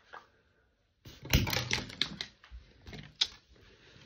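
A quick run of sharp clicks and clattering taps, with a single louder click near the end: small plastic makeup items being handled.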